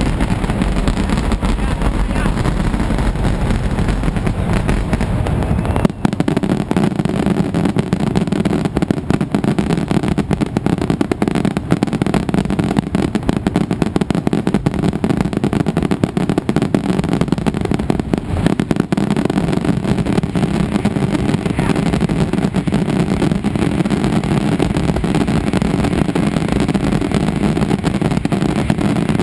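Mascletà: strings of firecrackers going off in a loud, continuous rattle of rapid bangs, growing denser about six seconds in.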